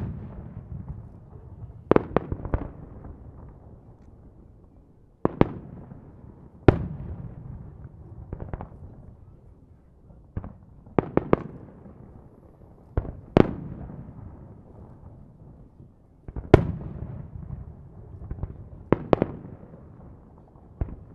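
Aerial firework shells bursting: sharp booms every second or two, some in quick pairs or triplets, each trailing off in a low rolling echo.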